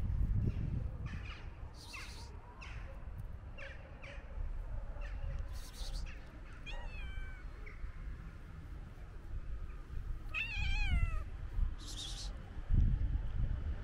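A domestic cat meowing twice: a short call falling in pitch about halfway through, then a louder, wavering meow later on.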